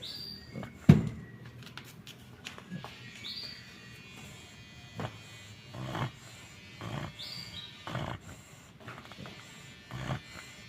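American bully dog snoring in its sleep, a noisy snore roughly once a second through the second half. A single sharp knock about a second in is the loudest sound.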